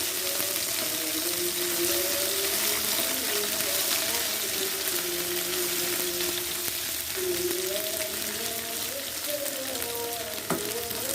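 Small dried anchovies (teri) frying in hot oil, a steady loud sizzle, with a wavering tune running over it and a single click near the end.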